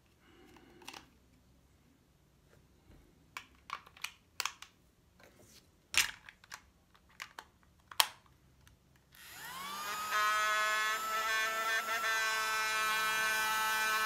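Plastic clicks and snaps as AAA batteries are fitted into a Flea Market mini desk vacuum cleaner and it is closed up. About nine seconds in, its small battery motor is switched on and spins up quickly into a steady high whine.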